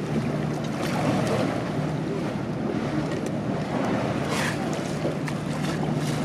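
A motor boat's engine drones steadily under the rush and splash of water along the moving hull, with wind buffeting the microphone and a few short hisses of spray.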